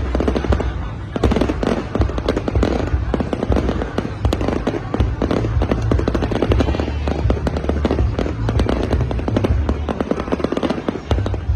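Fireworks display: a dense, continuous run of bangs and crackles, many a second, over a low rumble.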